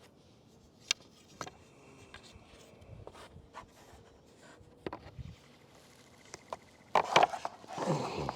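Scattered light clicks and knocks from handling rope and rigging gear, with a louder burst of knocking and rustling scrape near the end.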